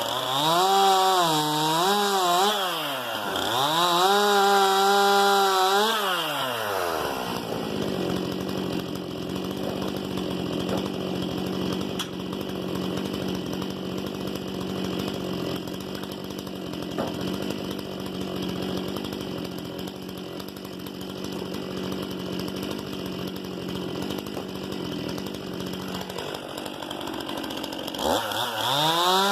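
Stihl MS 261 C-M two-stroke chainsaw revving up and down in the first six seconds. It then runs for about twenty seconds at a steady, slightly lower pitch with a rough rasp, the engine pulled down under load as the chain cuts through firewood. Near the end it revs free again.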